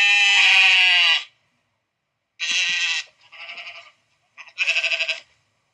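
Four bleats from a goat-or-sheep-like farm animal, with dead silence between them. The first is the longest and loudest and falls in pitch; a later one wavers.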